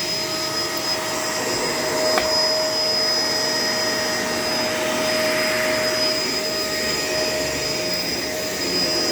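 Shark LA702 vacuum cleaner running steadily while cleaning the floor, its motor giving a constant whine. There is a short click about two seconds in.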